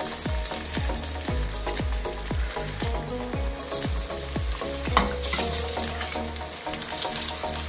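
Raw beef pieces sizzling in hot oil and onions in a steel pot as they are stirred with a steel spoon, with a sharp clank of the spoon against the pot about five seconds in.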